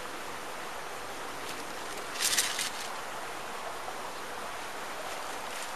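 Steady, even outdoor hiss of an open field, with a short rustle about two seconds in.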